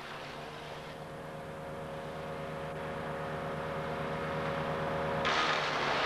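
Wood chipper engine running steadily and slowly getting louder, then a sudden loud rushing noise near the end as the machine takes on chipping.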